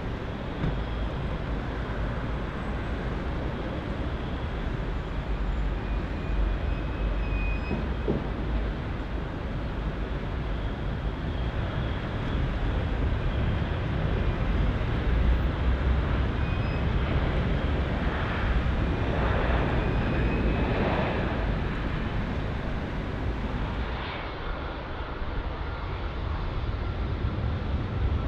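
Boeing 787-9 airliner landing: steady jet engine noise with a deep rumble as it touches down and rolls out along the runway, with faint high engine whine. Near the end it cuts briefly quieter, to another 787-9 coming in to land.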